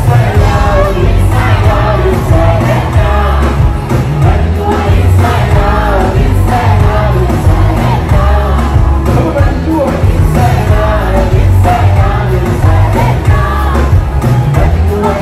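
Live band music with a man singing into a microphone over a loud, bass-heavy beat.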